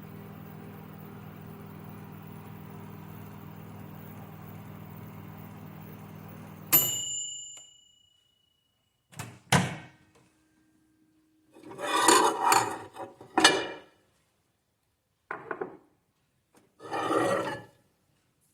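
Microwave oven running with a steady hum that cuts off about six and a half seconds in at a single ringing ding, the end of the heating cycle. After a pause come several short knocks and clunks from handling the oven.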